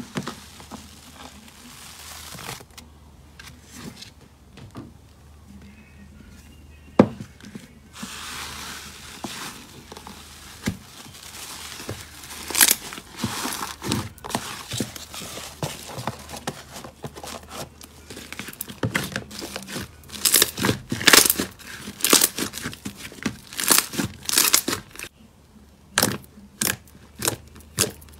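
Slime squished and pressed by hand in a plastic tub, giving crinkly, crackling squelches with many sharp little pops. Near the end, separate pops as fingers poke into a thick glossy slime.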